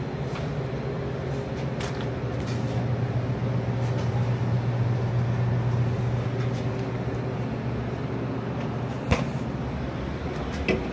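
Street traffic: a heavy vehicle's engine running with a steady low hum that swells toward the middle and eases off, with two short sharp knocks near the end.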